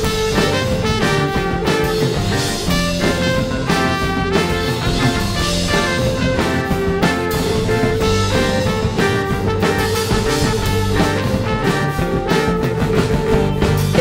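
Indie rock band playing an instrumental break live, a trumpet carrying the melody over drums, guitars, bass and keyboards.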